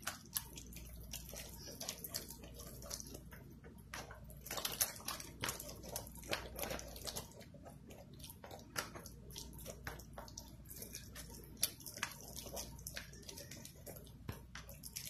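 Spoon stirring an egg into melted mozzarella in a bowl for keto pizza dough: irregular scrapes and knocks against the bowl with wet mixing sounds, busiest in the middle.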